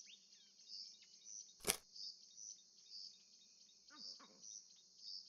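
Faint nature ambience: a high insect chirping in an even pulse a little under twice a second, over short falling bird chirps. There is one sharp click about a third of the way in and a brief low call near the end.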